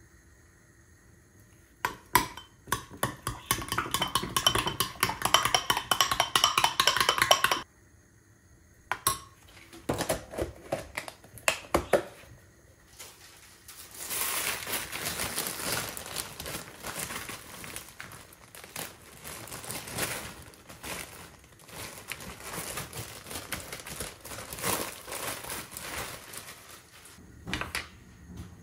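Metal spoon beating yogurt in a glass bowl: rapid clinking and scraping against the glass, stopping suddenly after a few seconds. A few more clinks follow, then a longer, softer stretch of steady scraping.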